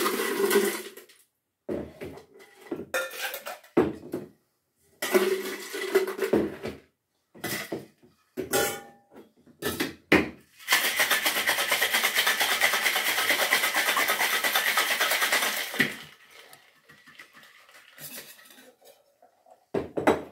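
Steel tins and ice clinking and clattering as a two-piece cocktail shaker is filled and handled. About ten seconds in comes a sharp knock as the tins are sealed, then about five seconds of hard shaking with ice rattling inside. A short clank near the end as the tins are knocked apart.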